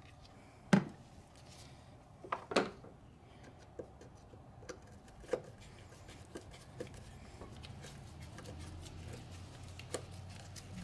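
Scattered small clicks, taps and light scraping of hand tools working a screwdriver on the screws that hold a mass air flow sensor into a plastic air-intake box. One hard knock just under a second in is the loudest, with a couple more around two and a half seconds and lighter ticks after.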